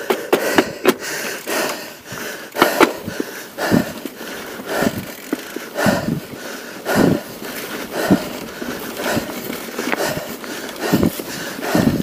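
A mountain biker breathing hard while pedalling, about one loud breath a second, over a steady hiss of tyres on a dirt trail.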